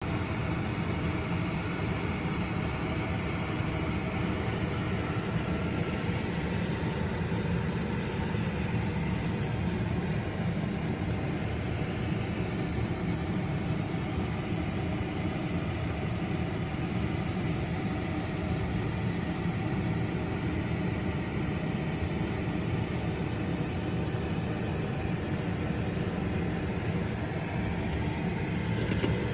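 A lidded pot boiling hard on a gas stove: a steady rumbling hiss with scattered faint ticks.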